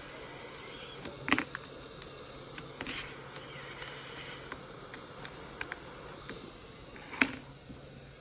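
Handheld heat gun running with a steady fan drone as it heats a laptop keyboard plate, with sharp clicks from a metal pry tool working at the plate's edge, the loudest about a second in and again near the end.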